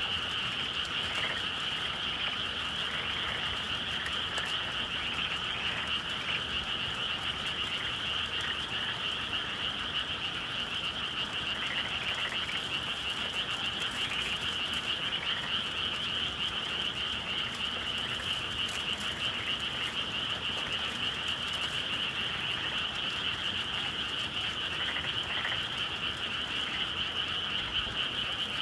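A dense chorus of many frogs calling at once, a steady unbroken mass of calls with no pauses.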